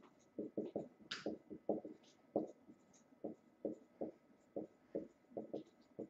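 Felt-tip marker writing on a whiteboard: a string of short, quiet strokes, about two or three a second, as block capital letters are written.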